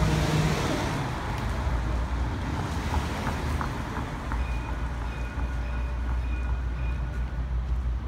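Steady low rumble of street traffic, with wind on the microphone. A faint, high, steady whine joins about halfway and fades near the end.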